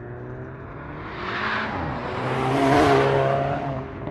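Volkswagen Mk7 GTI's 2.0 L turbo four-cylinder, fitted with a CTS Turbo high-flow catted downpipe and the stock cat-back exhaust, driving past under power. The engine and exhaust note builds to its loudest close to three seconds in as the car passes, then fades as it pulls away.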